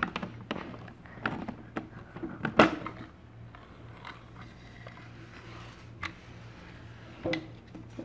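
Knocks and clicks from handling a small wooden model door as it is opened and the model turned around: scattered taps through the first three seconds, the loudest knock about two and a half seconds in, and a couple more later on.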